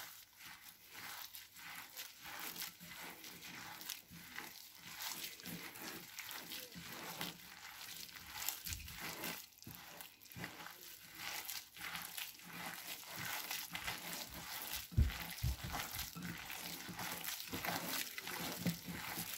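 Gloved hand kneading and squeezing raw minced chicken with herbs, spices, cornflour and egg in a glass bowl: a continuous run of irregular, soft wet squelches and crackles. There is one louder dull knock about three quarters of the way through.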